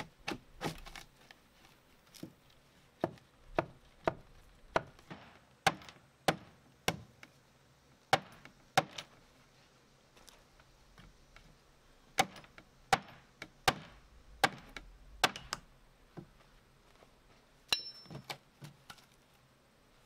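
Hammer blows knocking out a rotten wooden band board at the base of a shed: sharp separate knocks, about one or two a second, in two runs with a pause of a few seconds between. A brief high squeak comes near the end.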